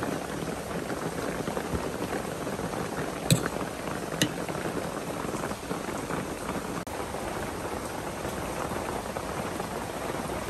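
A metal spoon clinks twice against a ceramic soup bowl, about a second apart, over a steady hiss of background noise.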